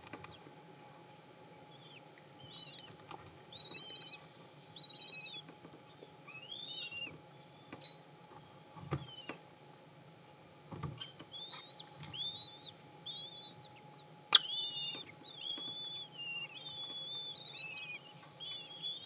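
Freshly hatched kestrel chicks cheeping to beg while being fed, a stream of short, high, thin chirps with a rapid run of peeps in the second half. A few sharp knocks from movement in the wooden nest box, the loudest about three-quarters through.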